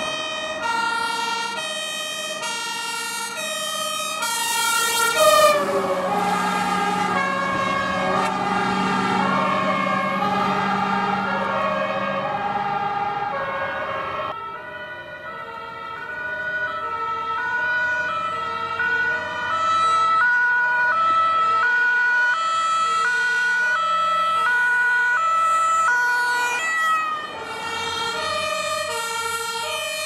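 German fire engines on an emergency run, sounding two-tone sirens. Several horns overlap out of step; about five seconds in the tones slide lower as the first vehicle passes. About halfway through, the sound cuts to a second pair of vehicles, a command car and a TLF16/25 tanker, sounding their own two-tone horns.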